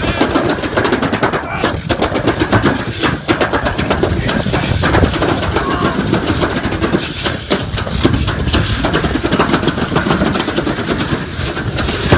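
Toboggan sledge running fast down a steel-trough track, a dense, irregular rattling clatter over a steady rushing noise.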